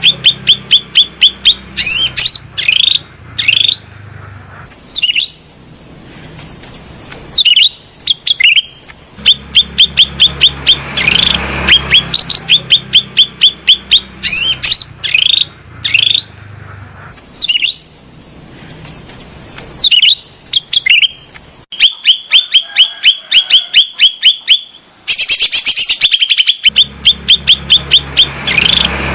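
Cucak rante songbird calls played as a lure and therapy recording: rapid runs of sharp, high chirps in bursts with short pauses, the same sequence repeating.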